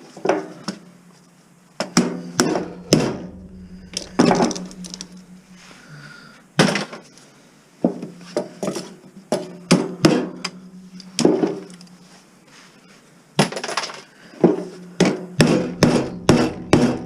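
Aiwa stereo tuner being pried and knocked apart: irregular sharp clacks and knocks of its metal casing and plastic faceplate, with quick runs of several hits near the start and in the last few seconds.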